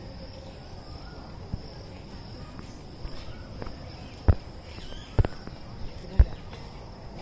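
Steady high-pitched insect drone. Three sharp knocks about a second apart, a little past the middle, are the loudest sounds.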